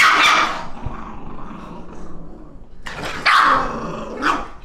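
Two Bichon Frisé dogs growling and barking as they tussle, with a loud burst at the start and two more about three and four seconds in.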